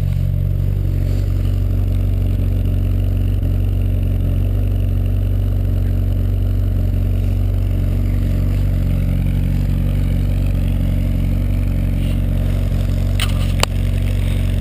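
2007 Yamaha Apex MTX snowmobile's four-stroke four-cylinder engine running steadily through its exhaust, with no revving. A single sharp click sounds near the end.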